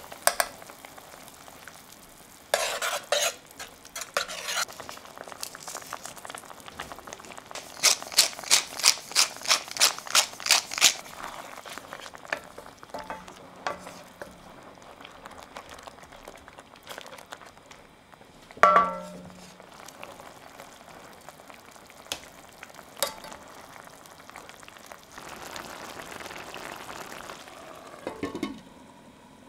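Wine and mushroom sauce simmering in a stainless steel sauté pan while a spoon taps and scrapes, then a wooden spoon stirs with a run of about a dozen quick strokes. Later comes one sharp ringing metal clink, and near the end a glass lid rattles down onto the pan.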